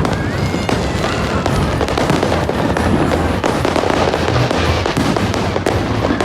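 Fireworks display going off in a rapid, continuous barrage of bangs and crackles, with a short whistle near the start.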